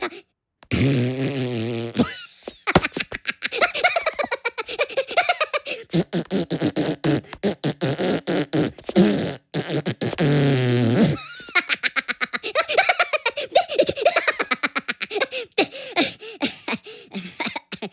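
Cartoon Minion voices blowing tongue raspberries in long rapid fluttering trills, with pitched voice sounds mixed in, twice held for a second or two.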